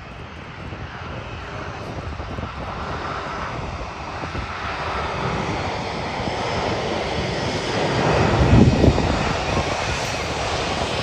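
Airbus A330-300's Rolls-Royce Trent 700 jet engines at approach power as the airliner flies past on final approach and flare. The engine noise builds steadily and is loudest about eight to nine seconds in, with a deep rumble.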